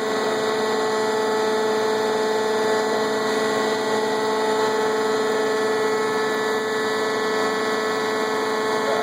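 Marvel vertical bandsaw running: a steady machine hum with a strong whine from its motor and hydraulic drive, building slightly in the first second and then holding level.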